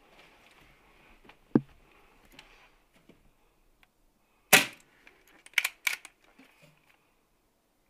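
.22 pre-charged pneumatic air rifle firing once, a sharp crack about four and a half seconds in, the loudest sound here. About a second later come two more sharp knocks close together, and a lighter click comes about a second and a half in.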